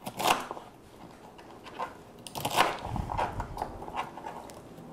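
Kitchen knife cutting through raw asparagus spears on a plastic cutting board: irregular crisp crunches with knocks of the blade on the board, the loudest just after the start.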